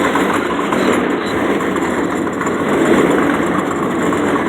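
Husky rolling steel tool chest pushed along pavement on its casters: a steady rumbling rattle of wheels and loose drawers.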